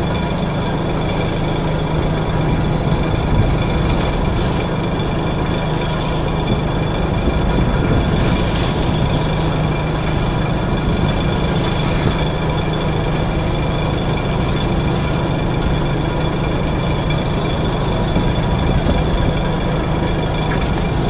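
Fishing boat's engine running steadily: a constant low hum with a few steady high whining tones over a wash of noise.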